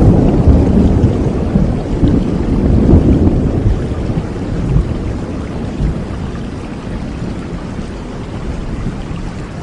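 Steady rain with a low rumble of thunder that is loud at the start and slowly dies away.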